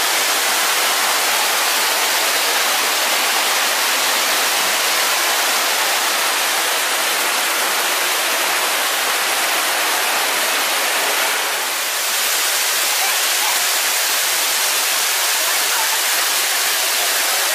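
A waterfall running, a steady, even rush of falling water.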